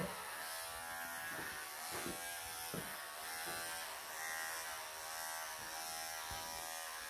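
Electric pet clippers buzzing steadily as they shave through a Maine Coon's long coat, the hum swelling slightly as the blade pushes through the fur.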